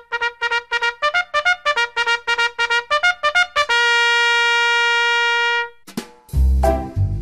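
Intro music: a trumpet plays a quick run of short notes, then holds one long note for about two seconds. After a brief pause, a bouncy tune with a heavy bass beat starts near the end.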